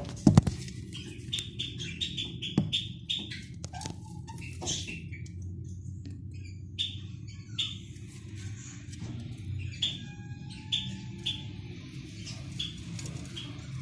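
Budgerigar chicks cheeping: short, high peeps repeated irregularly, over a steady low hum, with a few sharp clicks near the start.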